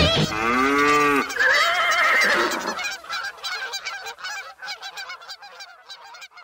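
A cow moos once, followed by a wavering higher call, then a flock of geese honking in quick, overlapping calls that fade away.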